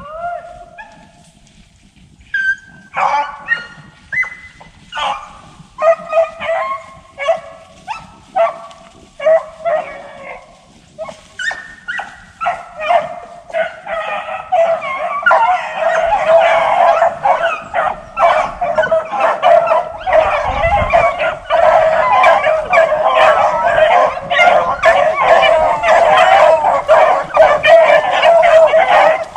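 A pack of beagles baying while running a rabbit. At first single dogs give separate bawls; from about halfway the whole pack opens up together in a continuous overlapping chorus.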